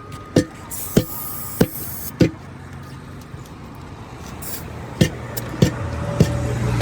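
Hammer blows in two runs, one about every 0.6 s with a short metallic ring: four early on, then more starting about 5 s in. A steady low hum grows beneath them in the second half.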